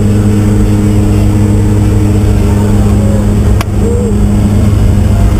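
Jump plane's engine and propellers droning steadily inside the cabin, with rushing wind noise. A sharp click about three and a half seconds in.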